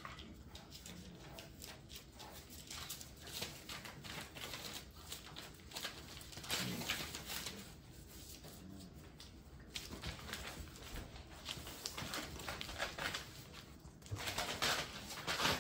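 Bullmastiff puppies running and playing on a hard floor: a patter of small paws and clicking claws with scuffles, busier about six seconds in and again near the end.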